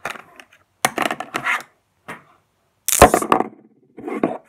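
Buzz magnets clicking and rattling against each other and their plastic bag in short bursts, with a louder sharp clack about three seconds in.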